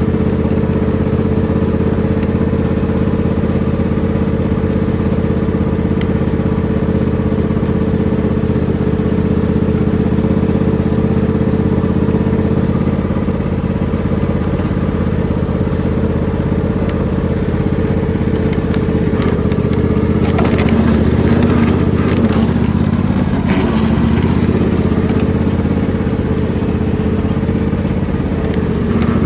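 Riding lawn mower engine running steadily at an even speed, with a few seconds of clattering and knocks about two-thirds of the way in.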